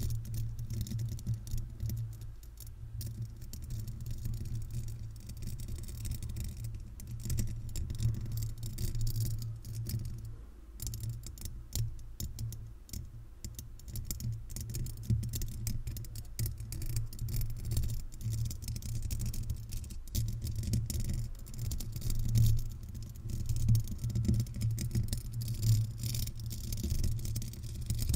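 Fingernails fitted with paper clips scratching and tapping on a microphone's metal mesh grille right at the capsule: a continuous run of fast scratchy clicks and rattles over a deep rumble, louder in places in the second half.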